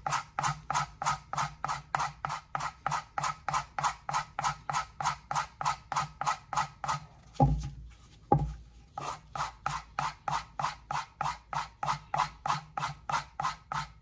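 Knife blade stroked back and forth on a leather strop at an even pace of about three strokes a second, honing off the burr. About halfway the strokes stop for a moment and two knocks are heard, then the stropping resumes.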